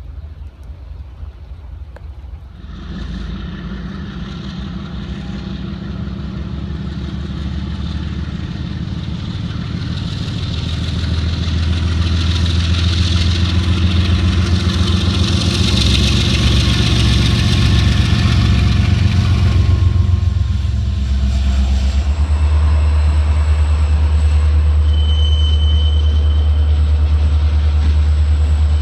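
Norfolk Southern diesel freight locomotives running under power as they pass close by. A steady engine drone starts suddenly about three seconds in and builds to its loudest past the middle, with a rushing hiss. Near the end it gives way to a steady lower drone.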